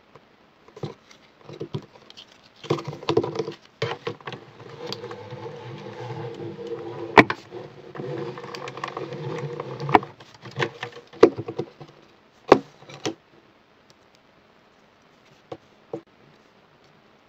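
Cuttlebug hand-crank die-cutting machine being cranked, its rollers drawing a sandwich of plastic cutting plates and a strip die through in a steady rolling run of several seconds. Sharp clacks of the plastic plates being handled come before, during and after the run, the loudest about halfway through.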